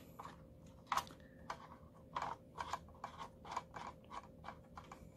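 Faint, irregular clicks and scrapes of small plastic and metal parts as a smartphone holder is screwed onto a ring light's ball-head mount, a dozen or so light taps, with a faint steady hum underneath.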